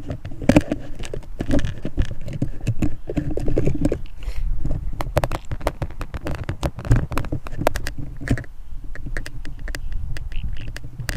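Fingers handling a camera and its plastic case right at the built-in microphone as it is taken out and refitted the right way up: irregular clicks, taps and scraping.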